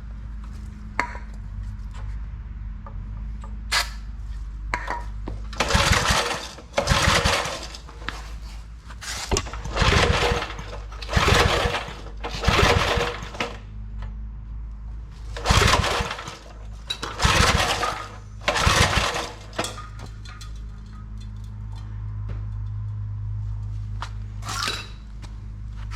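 Old Briggs & Stratton 5 hp engine being cranked by its pull-cord starter, about ten pulls in quick succession without the engine catching. A steady low hum runs underneath.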